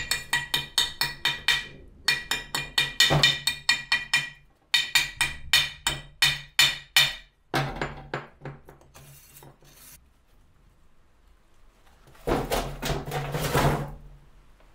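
Wire brush scrubbed in quick back-and-forth strokes, about four or five a second, over weld beads on a cast-iron brake disc, which rings with each stroke. The strokes slow and fade out after about seven seconds. After a pause, a louder rush of noise lasts about two seconds near the end.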